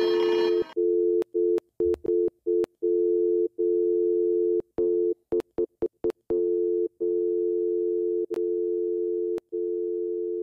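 A steady electronic tone of two close low notes, like a telephone dial tone, chopped by many sudden dropouts at irregular intervals, each with a click, in a glitching stutter. Music cuts out less than a second in.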